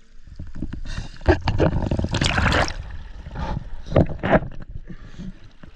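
Water splashing and gurgling in irregular bursts, loudest a little after two seconds in and twice more around four seconds in.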